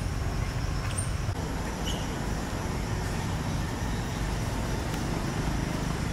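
Steady low outdoor rumble, with a couple of brief high chirps in the first two seconds.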